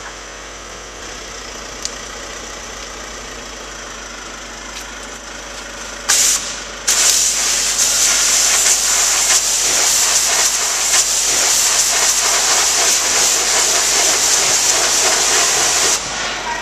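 High-pressure washer jet blasting onto a laser distance meter on a concrete floor: a loud steady hiss that starts abruptly about six seconds in, breaks off for a moment, then runs for about nine seconds and stops. Before it, a lower steady background hum with one sharp click.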